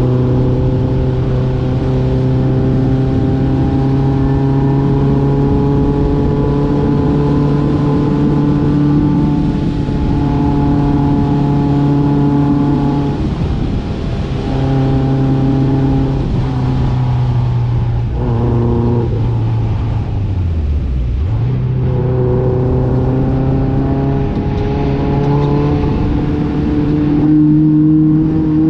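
Off-road vehicle's engine pulling steadily under load on a dirt trail, its pitch creeping upward, with short lifts off the throttle about halfway in and a deeper drop about three-quarters in before it climbs again; rumble of the tyres on the dirt underneath.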